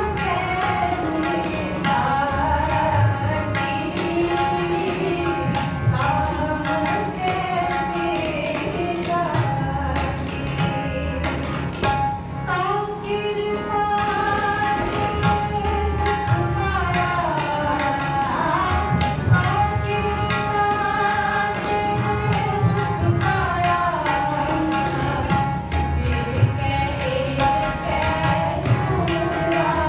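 Sikh gurbani kirtan: a woman sings a shabad, accompanied by two harmoniums holding sustained notes and a tabla keeping a steady beat.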